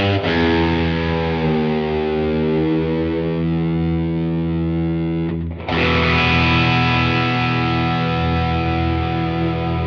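Overdriven electric guitar, a 1996 Fender American Stratocaster through a Blues Senior tube combo and a Universal Audio OX Box factory delay preset, playing two long held chords. The first is struck right at the start and bends down in pitch and back, as with the floating tremolo arm; the second is struck a little past halfway and rings on.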